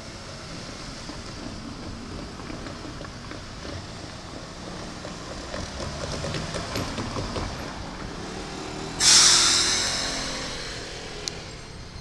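A low rumble builds and fades, then a sudden loud hiss of compressed air dies away over about two seconds, typical of a Keikyu electric train's air brakes venting. A single click comes near the end.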